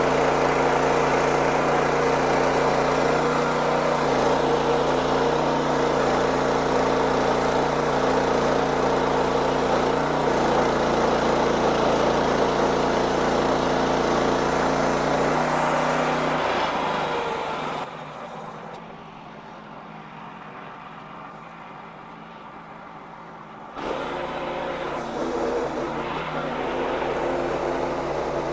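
Wood-Mizer LX55 band sawmill running with a steady machine drone, milling a hickory log. Its sound fades over a couple of seconds about two thirds of the way through to a much quieter stretch, then comes back up abruptly about four seconds before the end.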